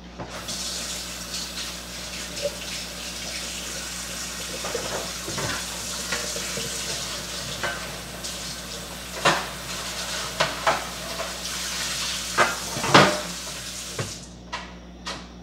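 Kitchen tap running into a sink, with a few knocks and clinks of dishes; the water stops near the end.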